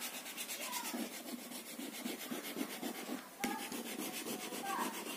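Chalk rubbed quickly back and forth on a chalkboard, shading in squares of a drawn grid: a faint, scratchy rubbing with a short break about three seconds in.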